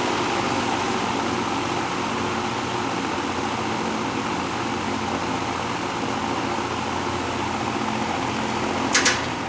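Vintage Emerson Electric 20-inch two-speed box fan running on low speed: a steady motor hum under the whoosh of moving air. Two quick clicks near the end.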